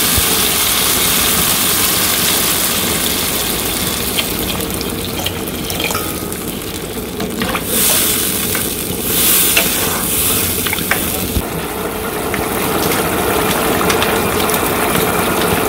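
Potato and tomato masala sizzling in a hot non-stick kadai, stirred with a melamine spoon that clicks and scrapes on the pan. Partway through, water goes into the hot pan with a brief loud hiss, twice, and the masala becomes a curry.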